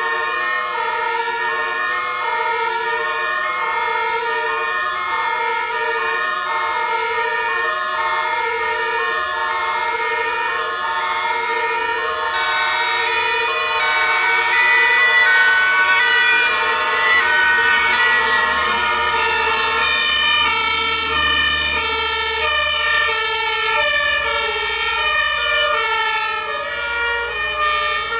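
Several German two-tone emergency sirens from police cars and fire engines sound at once, overlapping out of step. They grow louder about halfway through as the vehicles pass, and the low rumble of heavy truck engines joins them in the second half.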